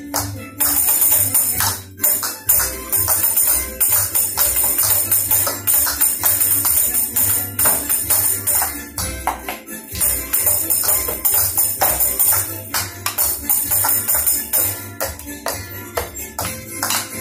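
Maglalatik dance: coconut-shell halves strapped to the dancers' bodies struck together in a quick run of sharp clacks, with a small hand drum beaten with a stick, over music with a steady beat and a tambourine.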